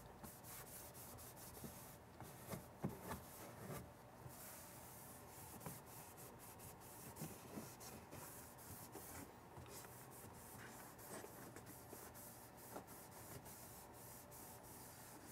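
Faint rubbing of an applicator pad wiping ceramic trim coating across a plastic inner wheel-well liner, with a few light knocks about two to three seconds in.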